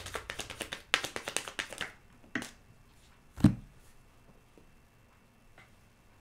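A tarot deck being shuffled by hand: a quick run of crisp card clicks for about the first two seconds. Then a small knock and, about three and a half seconds in, a heavier thump, the loudest sound.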